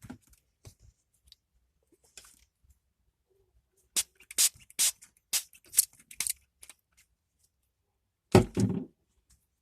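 Small hard plastic items being handled in a terrarium jar: a quick series of light clicks and taps, then one louder knock near the end.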